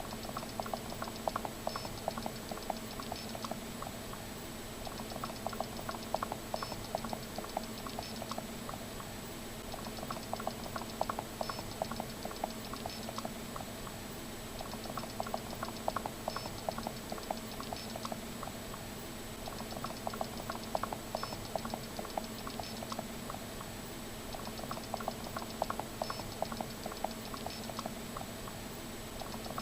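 Plastic ramp walker toy's feet rapidly clicking and tapping as it waddles down a ramp, in runs of a few seconds with short pauses between, over a steady low hum.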